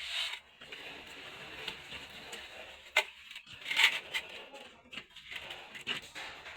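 Hand tools scraping and rubbing on a hard surface, with two sharp knocks about three and four seconds in.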